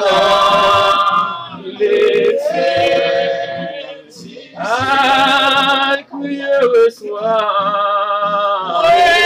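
Worship song being sung in long held phrases, some notes with vibrato, broken by short pauses for breath.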